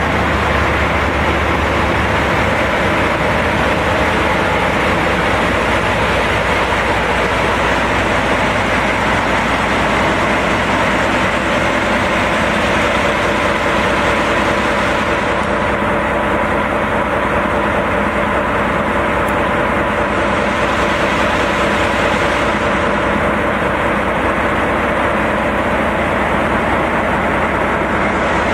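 JNR DE10 diesel-hydraulic locomotive idling, its V12 diesel engine running loud and steady.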